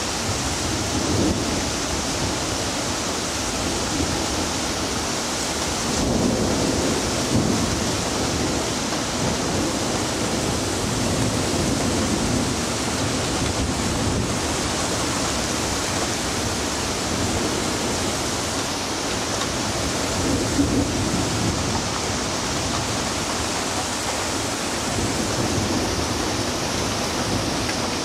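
Thunderstorm: heavy rain falling steadily, with several deep rolls of thunder rumbling through it, the strongest about seven seconds in and again near twenty seconds.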